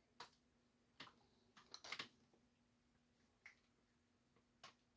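Near silence with a handful of faint, scattered clicks and ticks from hands handling a plastic shotshell wad and hull, with a few grouped together about two seconds in, as a cardboard over-powder card is fitted. A faint steady hum runs underneath.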